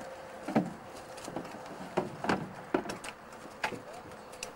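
A handful of sharp clicks and knocks at irregular intervals, over a faint steady hum.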